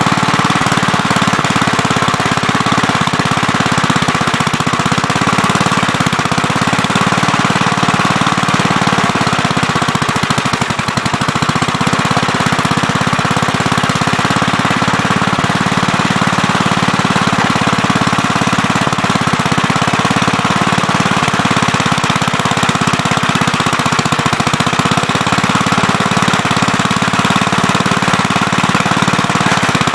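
Gravely Terramite compact backhoe's engine running steadily at working speed, a loud, rapid, even pulsing, with a brief slight dip about ten seconds in.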